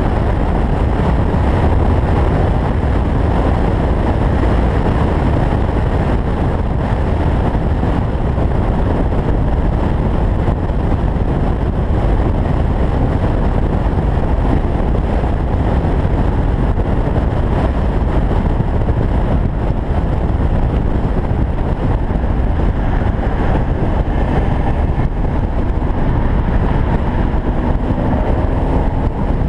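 Steady rush of wind and tyre noise from an open-top convertible cruising at highway speed, with wind buffeting the microphone; no distinct engine note stands out.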